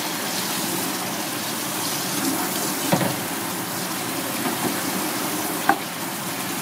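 Steady rush of running water, like an open tap. A chef's knife knocks on a plastic cutting board while cutting hagfish, once about three seconds in and once near the end.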